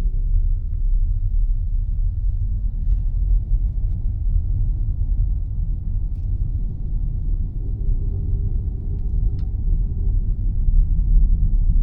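Steady low rumble of a car driving slowly, heard from inside the cabin: road and engine noise with a faint hum above it.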